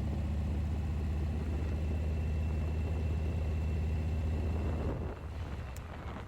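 Harley-Davidson V-twin engine running steadily as the motorcycle rides along, with a faint steady whine above it. About five seconds in the engine note drops away and gets quieter.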